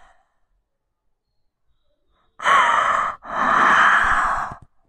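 A woman crying, with her hands over her face: after a silence, a short gasping breath about two and a half seconds in, then a longer sigh-like breath.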